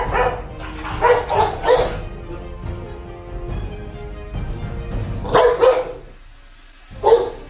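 Golden retriever barking aggressively in short bursts: a quick run of barks about a second in, two more around five and a half seconds, and one near the end, over background music.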